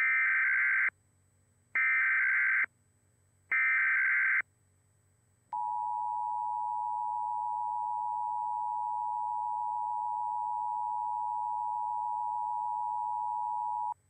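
Emergency Alert System Required Monthly Test from a Trilithic EASyPLUS encoder/decoder: three short bursts of SAME header data tones, each about a second long, followed about a second later by the steady two-tone attention signal (853 and 960 Hz), which holds for over eight seconds.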